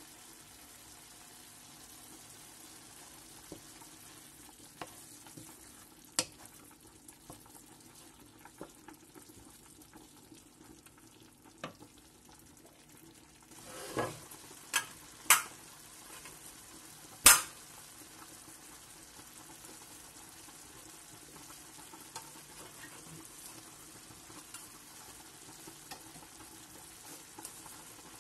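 Ground meat and onions sizzling steadily in a frying pan. A wooden spoon stirs and knocks against the pan a few times, in a short cluster about halfway through; the sharpest knock comes about two-thirds of the way in.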